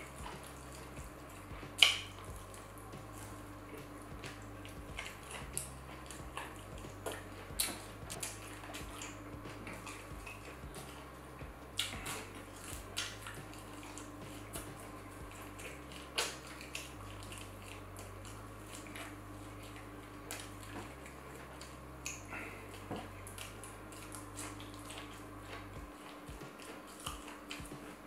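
Close-miked eating sounds: chewing with wet mouth clicks and smacks, and now and then a light clink of cutlery or a plate. There are many short, irregular clicks, the sharpest about two seconds in.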